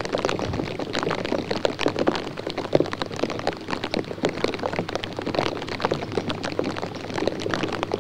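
Dense, irregular pattering of water drops on a surface close to the microphone, many ticks a second, over a steady low electrical hum.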